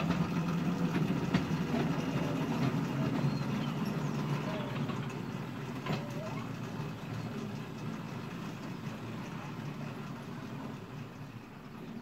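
Miniature railway shunter's engine running with a steady low hum, gradually fading away.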